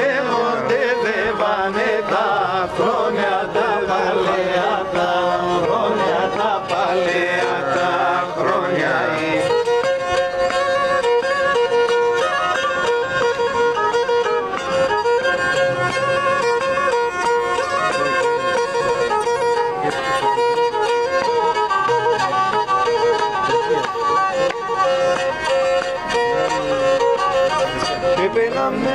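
Pontic lyra (kemenche) playing a Pontic folk tune, with voices singing along over the first nine seconds or so, then an instrumental passage of steady bowed notes over a held drone.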